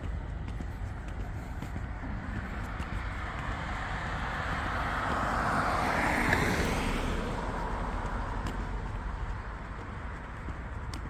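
A car driving past on the road, its tyre and engine noise swelling to its closest about six seconds in and then fading away, over a steady low rumble.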